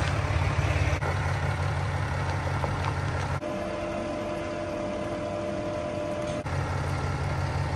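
Cummins 6.7-litre inline-six turbo-diesel in a 2017 Ram pickup idling with a steady low rumble. A little past a third of the way in, it gives way for about three seconds to a quieter steady hum with a thin whining tone, before the diesel idle returns near the end.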